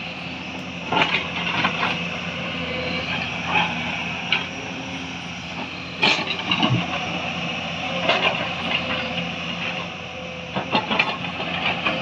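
Hyundai crawler excavator's diesel engine running steadily under hydraulic load while the boom and upper body swing, with sharp knocks here and there, the loudest about halfway through.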